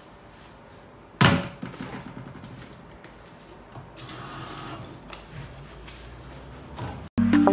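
Dishes being washed by hand at a kitchen sink: a sharp clatter of crockery about a second in, then small knocks of dishes, and a short rush of running tap water around the middle. Music starts suddenly near the end.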